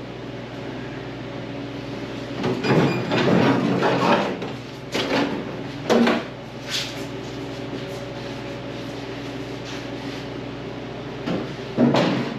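Clatter and knocks of parts and tools being handled during work on a car, over a steady mechanical hum. A run of clatter comes a couple of seconds in, then single knocks follow, with another pair near the end.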